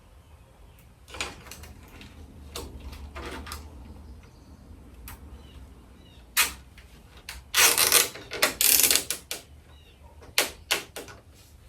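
Plastic zip ties being pulled tight, a rapid ratcheting zip that is loudest a little past the middle, among scattered clicks and knocks of plastic parts being handled.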